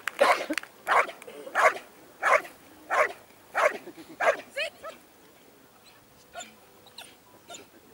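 Belgian Malinois barking at a helper who holds a bite sleeve, the guard-and-bark part of bitework. The barks are loud and come in a steady rhythm, about one every two-thirds of a second, and stop about four and a half seconds in.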